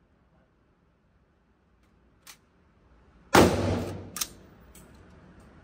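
A single loud gunshot about three seconds in, echoing off the walls of an indoor range and dying away over about half a second. A second, fainter sharp crack follows within a second. A faint click comes shortly before the shot.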